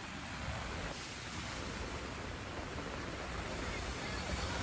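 Steady, even rushing noise with a low rumble and no distinct events.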